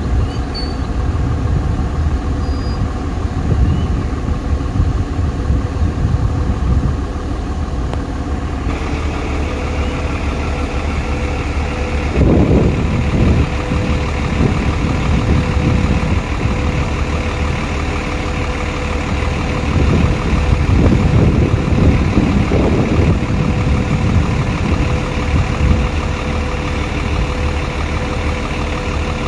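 Vehicle engine idling steadily, with louder swells of rumble about twelve seconds in and again around twenty to twenty-three seconds in.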